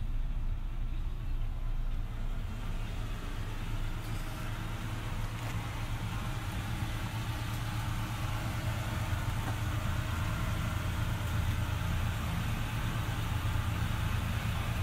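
2005 Ford F-550's V10 gas engine idling steadily, heard from inside the cab.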